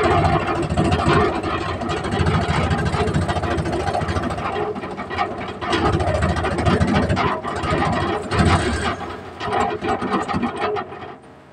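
An old vehicle's spark-ignition petrol engine, just fired up by a repaired starter motor, runs unevenly for about ten seconds and then dies near the end.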